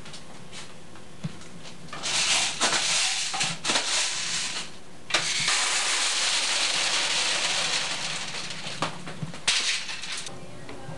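Loose candy pouring out of a bulk candy dispenser, a rushing rattle with scattered clicks. It starts about two seconds in, breaks off briefly near the middle, and stops about a second before the end.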